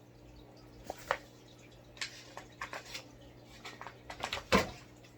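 Quiet handling noises: a few small clicks and taps over a low steady hum, with one louder knock about four and a half seconds in.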